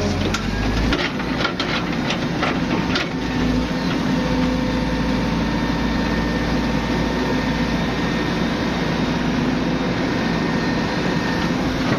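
Excavator diesel engine running steadily under load, with a quick series of sharp cracks in the first three seconds or so as the tree trunk's wood gives way.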